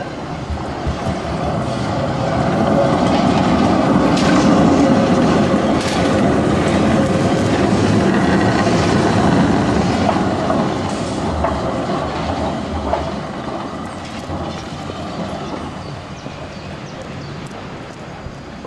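Articulated tram passing close by, its wheels rumbling and clattering over the rails, with sharp clicks here and there. The sound swells as it passes and fades as it moves away.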